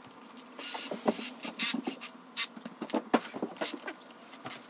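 Flat-pack particleboard furniture panels and their plastic fittings being handled during assembly: a run of sharp clicks and knocks, with a brief rustle just before a second in.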